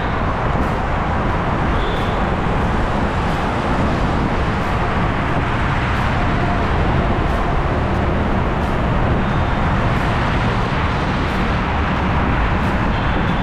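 Steady wind rush on the microphone of a moving camera while riding along a city road, with road traffic beneath it.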